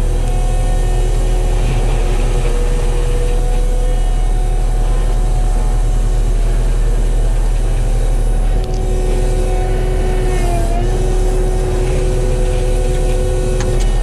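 Kubota SVL95 compact track loader's diesel engine running hard, heard from inside the cab, with a steady whine from the hydraulics driving a Promac drum mulcher as it grinds brush. The whine sags briefly in pitch about ten and a half seconds in, then recovers.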